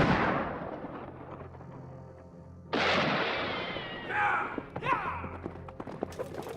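A single loud gunshot at the start rings out with a long echoing decay. About three seconds in, film score music swells in with gliding notes.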